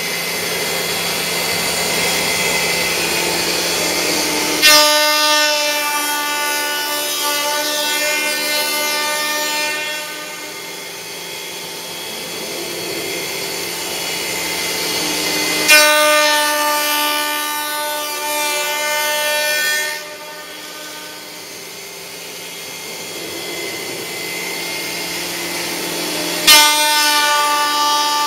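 Horizontal CNC milling machine cutting metal. A steady whir runs throughout, broken three times, about eleven seconds apart, by a sudden loud ringing whine of several steady pitches that lasts about five seconds each time: the cutter engaging the workpiece.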